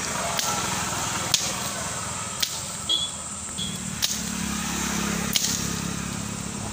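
A hand blade chopping at the base of a woody stem at ground level: about four sharp strikes roughly a second apart, over a steady low rumble.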